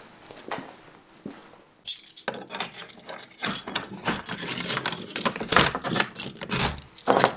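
A bunch of keys jangling and rattling while a key is fitted into a door lock and worked, a dense run of metallic clicks and chinks that starts abruptly about two seconds in and keeps going.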